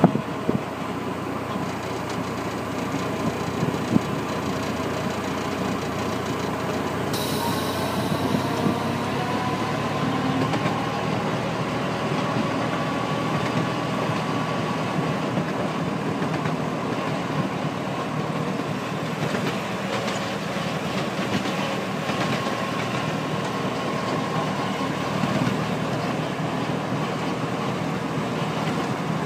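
Ride-on miniature railway locomotive running along the track: a steady rumble of wheels on rail, with a faint drifting whine and the odd short click or clack.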